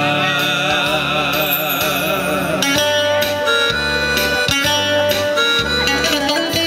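Live Greek band music: plucked guitars and a keyboard playing an instrumental passage of a Greek popular song over an alternating bass line.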